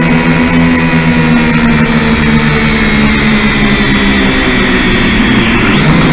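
Kyosho Quatrox Eye mini quadcopter's electric motors and propellers whining loudly, heard through its own onboard camera. The pitch sags slowly as the throttle eases and the drone sinks, then jumps back up near the end as it powers up to climb.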